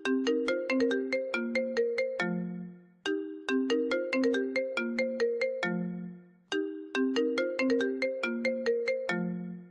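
iPhone ringtone playing: a short melody of quick notes that repeats three times, about every three seconds, each time ending on a lower held note that fades out.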